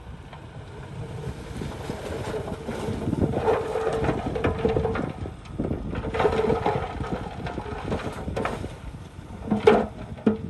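Bulldozer at work: its diesel engine runs and swells under load, with clatter, and a sharp loud clank near the end.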